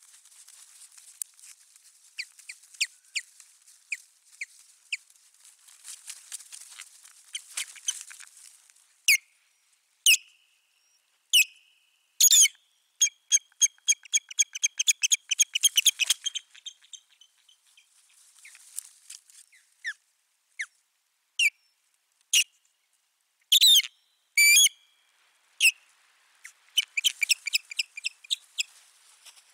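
Osprey giving sharp, high whistled calls, some single and some in quick runs of several a second, fastest around the middle and again near the end, over a soft hiss. These are the agitated calls of a territorial dispute with an intruding osprey.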